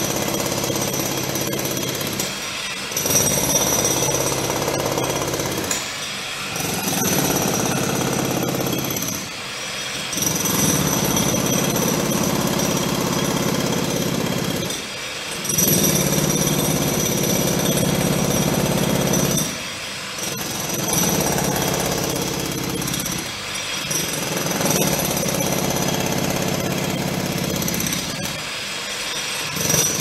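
Road construction machinery running loudly in runs of roughly three to five seconds, separated by short breaks.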